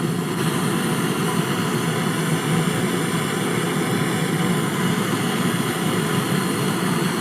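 Gas brazing torch burning with a steady rushing noise while a charging nipple is brazed onto a refrigerator's refrigerant line.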